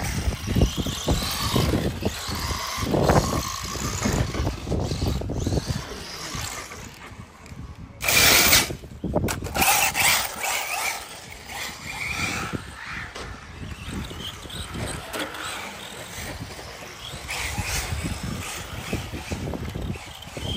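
Electric radio-controlled cars running on a dirt off-road track, their motors and tyres swelling and fading in level. A short, loud rush of noise comes about eight seconds in.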